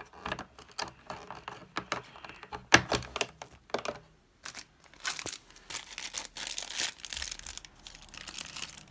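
Plastic wrapper of a sealed mini collectable being crinkled and torn open by hand, in irregular crackling bursts.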